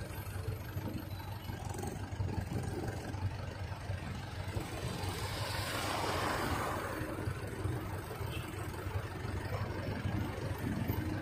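Road traffic with a steady low engine rumble. A car passes close about six seconds in, its engine and tyre noise swelling and then fading.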